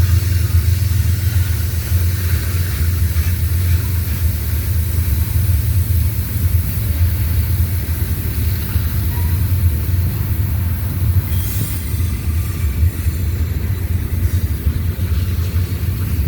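A train rolling past at the track: a steady, loud low rumble of wheels on rail, with a hiss above it.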